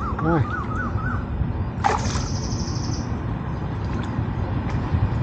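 Birds calling over a steady low rumble: a quick series of chirps in the first second or so, then a sharp call about two seconds in that runs into a high, rapid trill lasting about a second.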